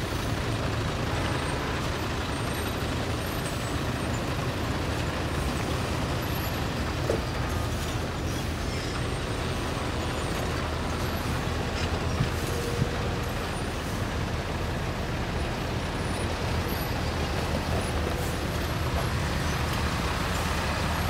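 Diesel engines of intercity coach buses running at low speed in slow, stop-and-go traffic: a steady low engine drone.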